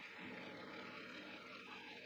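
JFMT metal lathe taking a roughing cut on a steel shaft, with coolant flowing over the work: a faint, steady machine hum and hiss with no distinct knocks or changes.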